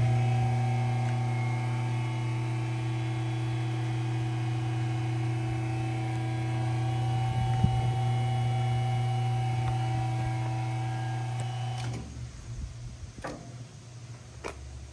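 Drum dumper's lift motor running with a steady hum as the hopper tilts up, cutting off about twelve seconds in. Two short clicks follow.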